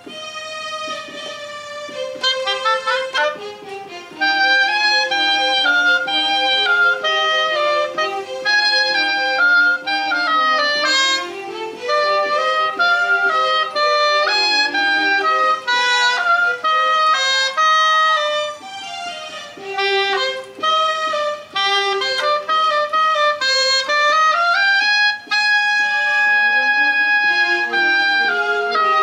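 Oboe playing a Baroque melody with a digital keyboard accompanying on a violin sound; the music grows louder about four seconds in, as the oboe comes in fully over the keyboard.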